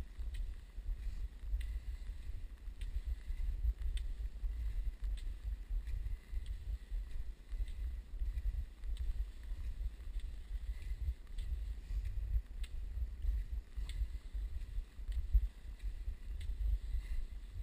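Wind buffeting the microphone in a heavy, uneven low rumble, over the faint regular strokes of cross-country skiing on packed snow, about three every two seconds.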